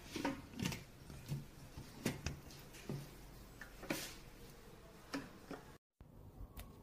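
Light, irregular clicks and taps, about seven, from the micro pressure cooker's glass lid and its fittings being handled. There is a brief drop-out near the end.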